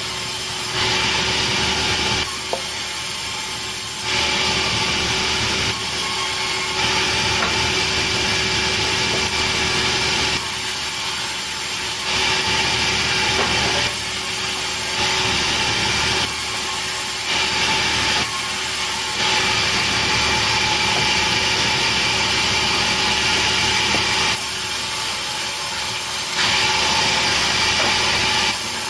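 Sawmill saw cutting petai wood, running continuously with steady whining tones. The sound alternates every one to four seconds between a louder, hissier cutting noise and a quieter running sound.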